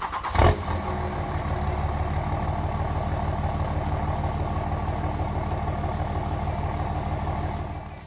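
Pickup truck engine starting, catching with a brief loud burst about half a second in, then idling steadily before fading out near the end.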